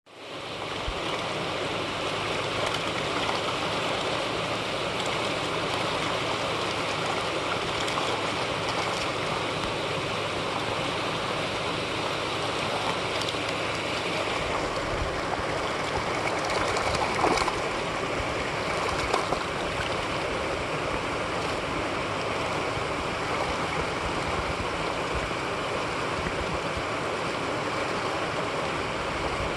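Steady rush of shallow water flowing over a sloped concrete spillway, with a couple of brief louder splashes a little past the middle as carp thrash in the flow.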